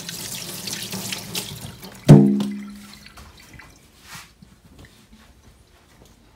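Kitchen tap running into the sink as hands are rinsed under it. About two seconds in the water stops with a sudden loud clunk that rings briefly at a low pitch, followed by a few faint small knocks.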